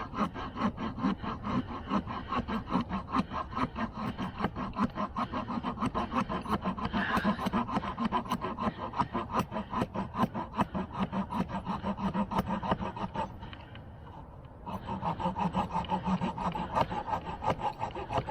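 Victorinox Ranger Swiss Army knife's small wood-saw blade sawing through a stick in quick, even back-and-forth strokes. The strokes stop for about a second and a half roughly two-thirds of the way through, then start again.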